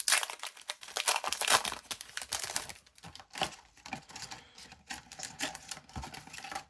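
A card-game booster pack's wrapper is torn open and crinkled in dense crackles for the first couple of seconds, then sparser clicks and rustles as the cards are handled.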